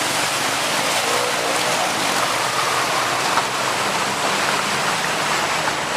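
Steady rush of floodwater, a continuous even hiss of moving and splashing water.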